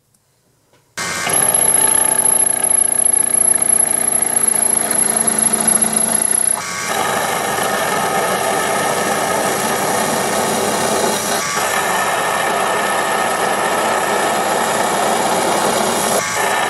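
Proxxon PD 250/e mini lathe running and turning a 42CrMo4 steel shaft with a carbide insert. The lathe comes in about a second in with a steady high whine. About six and a half seconds in, the sound changes to a fuller, rougher noise as the cut goes on.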